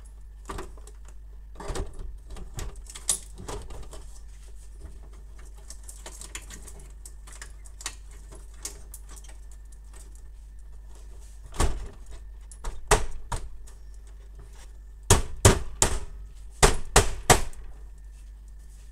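Hard plastic parts of a laser multifunction printer's scanner unit knocking and clicking against the printer body as it is handled and fitted back into place. A few scattered taps, then two dense runs of sharp clicks and knocks in the second half.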